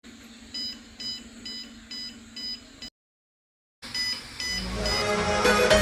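Arduino smoke-detector buzzer beeping in short, high, evenly spaced pulses, about two a second, over a faint steady hum: the alarm set off because the sensor has detected smoke above its threshold. The sound cuts out for about a second, the beeping resumes, and background music comes in and grows louder near the end.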